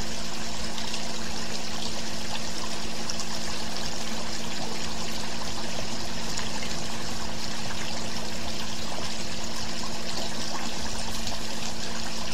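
Steady hiss with a low hum under it, unchanging throughout.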